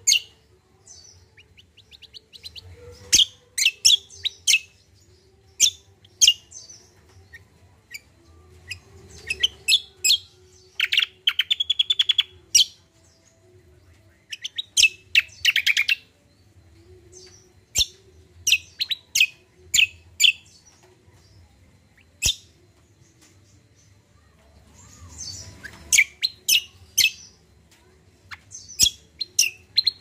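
Caged kacial songbird singing in loud bursts of sharp, high chirps and whistles, broken by two fast rattling trills about a third of the way through and again around halfway, then more chirp phrases near the end.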